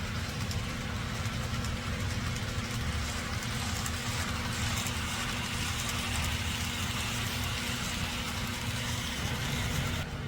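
N scale model freight train running by: a steady low motor hum with the rumble of wheels on the track and a constant hiss. The hiss drops away suddenly just before the end.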